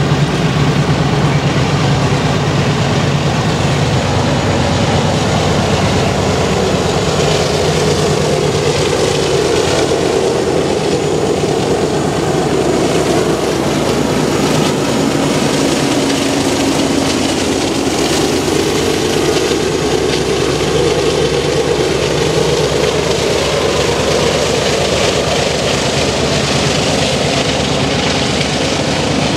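A freight train of covered grain hopper cars rolling past on steel rails, with a Canadian Pacific AC4400CW diesel locomotive's GE 16-cylinder engine running as it goes by. The engine tone swells around the middle.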